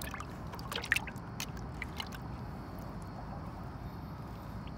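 Water splashing and dripping in a bucket as live eels squirm in it, with a few sharp little splashes in the first two seconds over a steady low rumble.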